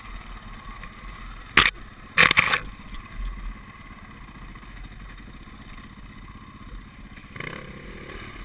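Dirt bike engine running at low trail speed on a rough single track, with two loud, sharp scraping knocks about one and a half and two seconds in.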